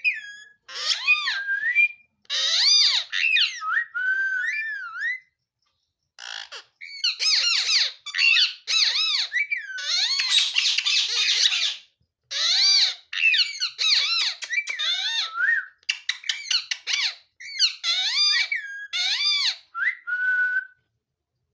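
Pet ringneck parrot calling over and over: high whistled squeaks and squawks that swoop up and down in pitch, in quick bursts with short pauses, and a harsher, rougher screech about halfway through.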